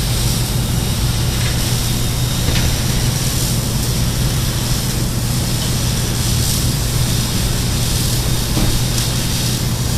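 Steady machine hum with a constant low drone and even hiss, unchanging throughout.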